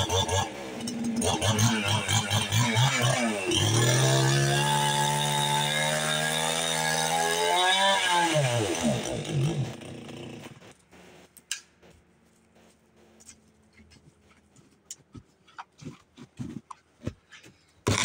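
Gas chainsaw running at full throttle; about three and a half seconds in its note drops and holds lower as it works through the wood. Then it winds down and stops about ten seconds in. Faint scattered knocks and clicks follow.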